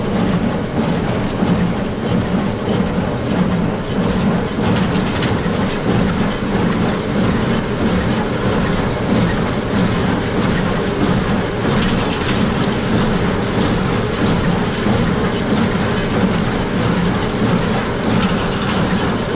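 Tractor running with a baler working straw, a steady loud mechanical clatter and rattle.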